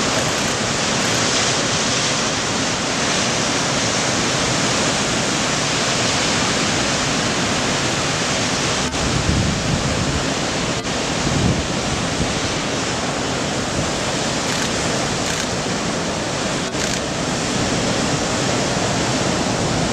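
Ocean surf breaking along the shore of a point break: a loud, steady rushing of breaking waves and whitewater, swelling briefly a couple of times near the middle.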